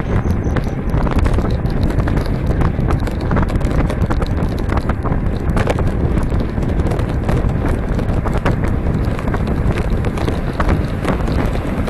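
Wind buffeting the microphone of a camera on a moving road bike: a constant low rumble with frequent small clicks and rattles running through it.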